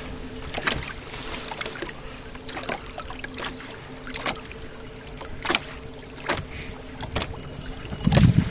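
Sounds of a small fishing boat on the water: a faint steady hum with light knocks and slaps scattered through it. Near the end, wind buffets the microphone with a loud low rumble.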